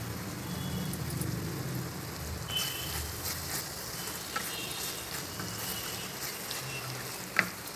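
Boneless chicken masala sizzling in oil in a kadai while a spatula stirs it, with a single sharp knock near the end.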